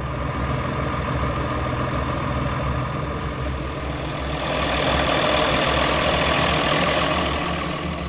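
Case MX120 tractor's 5.9-litre Cummins diesel engine running as it pulls a plough. It grows louder for a few seconds in the middle.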